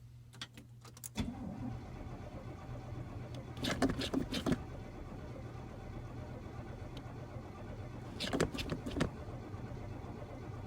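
1971 Oldsmobile Cutlass S engine being cranked over by its starter on a cold start, turning over steadily without catching: the engine is reluctant to fire in the cold. A few clicks come just before the cranking begins, about a second in, and two louder clattering spells come about four and eight seconds in.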